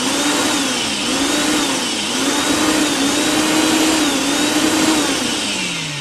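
Electric drill motor running at high speed, its whine dipping briefly in pitch about once a second, then winding down near the end.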